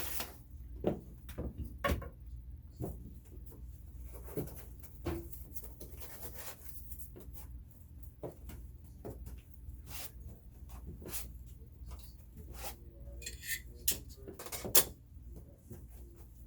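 Scattered clicks, taps and knocks of hard parts and packaging being handled, with a light rustle, over a steady low hum. The sharpest click comes near the end.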